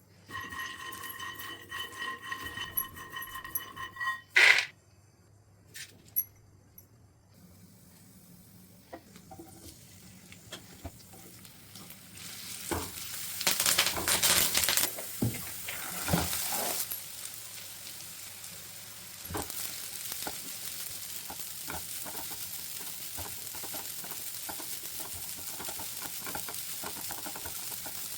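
Food frying in hot oil in a pan. A hiss builds about twelve seconds in, swells, then settles into a steady sizzle, with small clicks and scrapes of a spoon stirring. Before that, a pulsing high ringing tone plays for the first few seconds and ends with a sharp knock.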